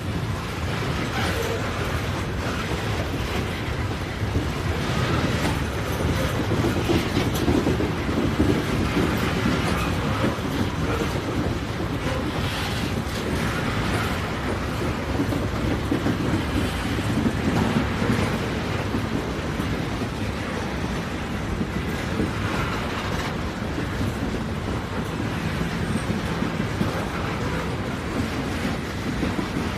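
A train rolling along the track: a steady, continuous rumble of wheels on rail.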